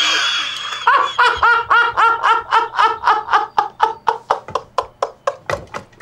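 A man laughing through a cloth gag, a long run of rapid laughs about five a second that slowly fade.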